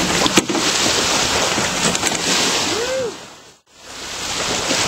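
Water splashing and pouring off a crab hoop net as it is hauled up over the side of a canoe, with wind buffeting the microphone and a sharp knock about half a second in. The sound fades out briefly about three and a half seconds in, then returns as open water and wind.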